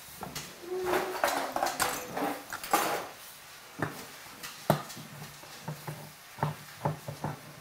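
Kitchenware clinking for the first few seconds, then a hand-held can opener clicking in short irregular strokes as it is cranked around a tin can, cutting the lid.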